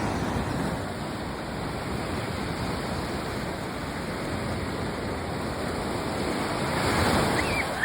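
Sea waves breaking and washing on the shore, a steady rush that swells louder near the end.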